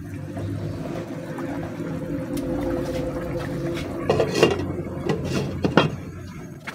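Catfish adobo simmering in a pot as it is stirred with a ladle. Then a glass lid is set on the pot, with a few sharp clinks about four and six seconds in.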